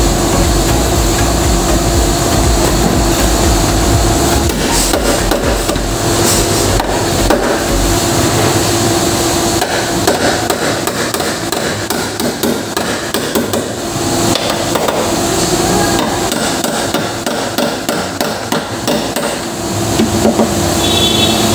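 Hammer striking the sheet metal of a Nissan NV350 van's dented front face panel from behind, knocking the crushed panel back out. The strikes come many and quick, thickest in the second half.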